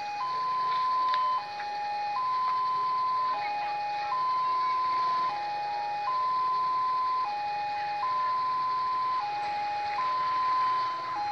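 Railway level-crossing warning alarm sounding a two-tone electronic signal, a longer higher note alternating with a shorter lower one about once every two seconds, warning that a train is approaching.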